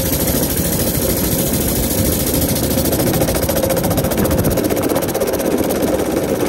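Baja Warrior mini bike's small single-cylinder engine running steadily under load while being ridden, pulling well now that its flat tire has been aired up.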